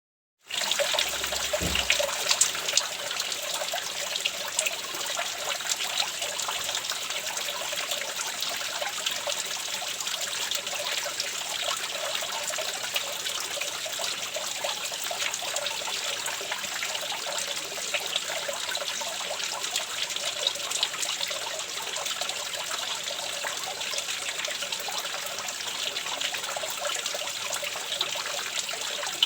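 Running water trickling steadily, starting abruptly about half a second in.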